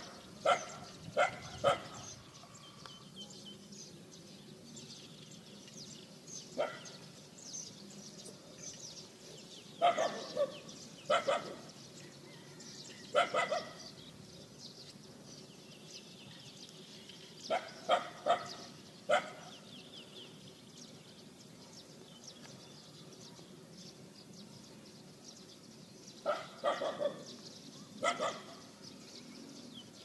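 Dogs barking in short groups of one to four barks, with pauses of several seconds between groups.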